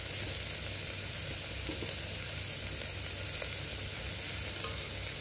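Chopped onion, tomato and green chilli sizzling steadily in oil in the bottom of a pressure cooker as they sauté.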